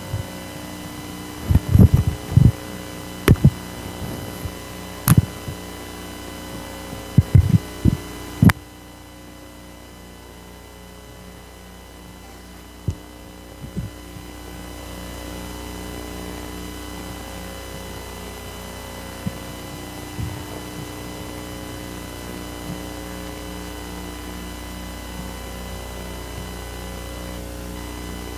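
Steady electrical mains hum through the recording's sound system. Several loud thumps and knocks come in the first eight or so seconds, then only the hum with a few faint clicks.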